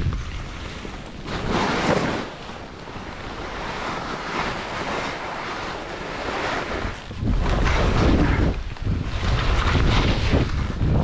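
Skis hissing and scraping through fresh snow on a steep descent, surging with each turn every couple of seconds, mixed with wind rushing on the microphone that turns into a heavy low buffeting from about seven seconds in.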